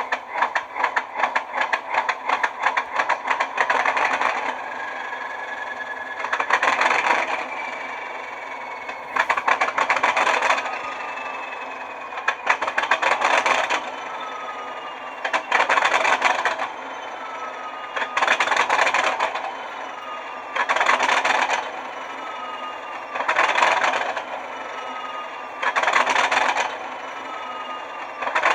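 Class 37 diesel locomotive's English Electric 12CSVT engine running just after a cold start, idling roughly. There is a fast clatter for the first four seconds. Then the engine surges about every two and a half seconds, with a whine falling away between surges.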